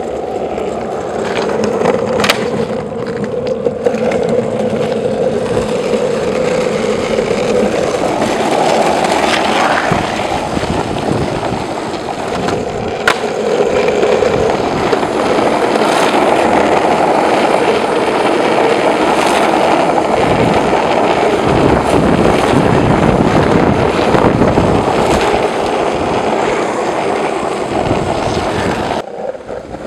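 Longboard wheels rolling fast on rough asphalt: a loud, continuous rumble, with a couple of sharp clicks.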